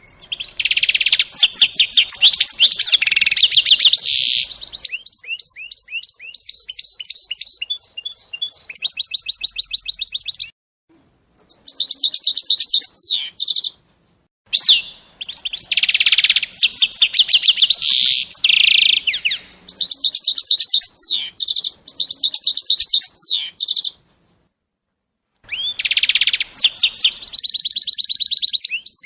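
A small songbird singing close by: long phrases of rapid trills and chirps, high in pitch, broken by three short pauses.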